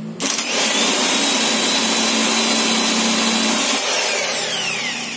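A power drill spinning a Valeo 90-amp alternator by its pulley: a steady whine for about three and a half seconds, then winding down with falling pitch. The alternator is not charging with its original regulator, so it turns freely with no load on the drill.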